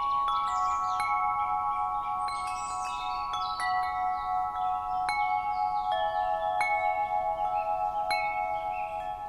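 Wind chime ringing, struck again and again at irregular moments, with several notes sustaining and overlapping into a continuous shimmer.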